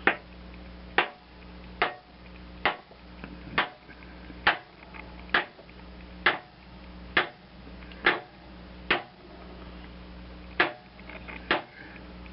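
Metal hammer blows, about one a second with a short pause near the end, driving a re-greased blade spindle and its bearing into the housing of a Ford LGT 14D mower deck until the bearing bottoms out. A steady low hum runs underneath.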